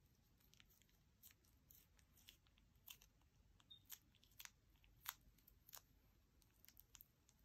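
Faint, irregular sticky clicks and crackles as clear glitter slime is squeezed out of a plastic piping bag, a few of them sharper than the rest.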